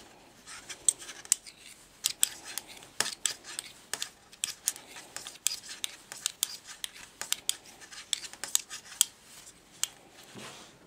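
Knitting needles clicking and tapping against each other as stitches are knitted in garter stitch, many short, sharp clicks coming unevenly, several a second.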